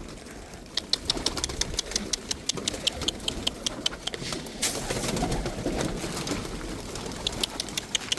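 Domestic pigeons cooing in a rooftop loft. A quick run of light clicks, several a second, comes before and after the cooing.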